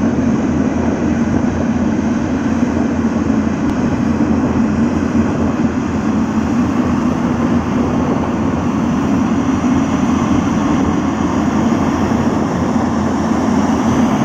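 Heavy diesel engines running steadily, a loud, even drone with no change in pitch.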